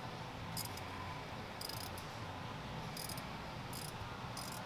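Quarter-inch ratchet clicking in short bursts about once a second as it is worked back and forth on an extractor bit, slowly backing out a broken exhaust manifold bolt.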